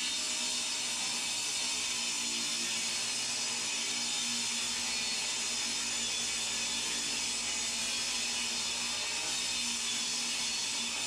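Workshop machinery running steadily: a constant whirring noise with a low hum underneath and no cutting.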